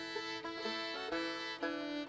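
Fiddle and banjo playing a waltz tune together: the fiddle holds long bowed notes over the banjo's picking.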